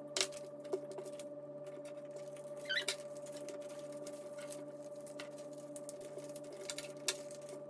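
Paper strips being handled, glued and pressed flat on a table: a few soft taps and rustles, with a brief squeak about three seconds in, over a steady hum.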